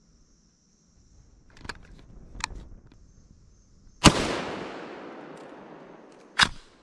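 A single shotgun blast with a long echo that dies away over about two seconds, followed near the end by a sharp click. A few faint clicks and rustles come before the shot.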